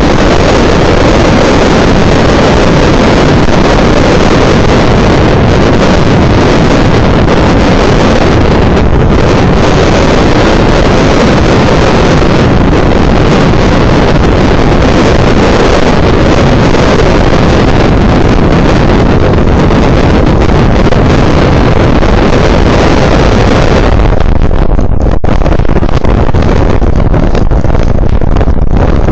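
Hurricane wind blasting the microphone: a loud, steady rush of noise with no let-up.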